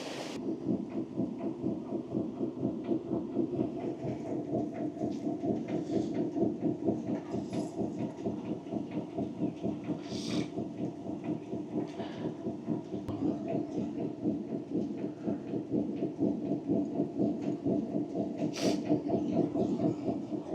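Turbine-driven upper millstone of a water mill turning on the fixed lower stone and grinding grain. It makes a steady, fast, regular pulsing grind, broken now and then by a few sharp clicks.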